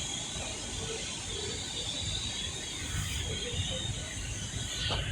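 Passenger train at the platform: a steady low rumble with a faint hiss.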